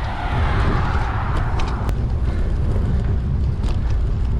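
Wind buffeting the microphone of a camera on a moving bicycle: a steady low rumble, with a hiss of passing road traffic that swells in the first couple of seconds.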